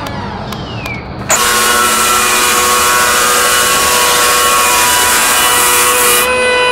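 Handheld power tool used to shape a surfboard switches on about a second in and runs with a steady whine and loud hiss. The hiss drops out briefly near the end while the motor keeps whining.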